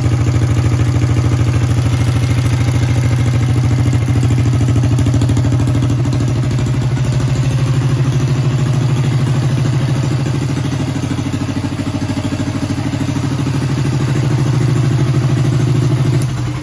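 Minibike engine running steadily at idle, left running to heat-set new header wrap on its exhaust, then shut off just before the end and dying away.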